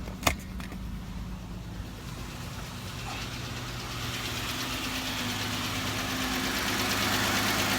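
2015 Jeep Wrangler Unlimited's 3.6-litre V6 idling steadily. It grows louder over the first several seconds, then holds level. The engine has a clicking noise that the owner, from YouTube videos, suspects may be a lifter, and it seems to come from the passenger side. There is a single sharp knock just after the start.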